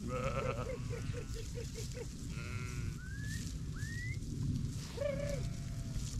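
A flock of sheep bleating, several separate calls overlapping, one a quavering, pulsing bleat about a second in, over a steady low rumble.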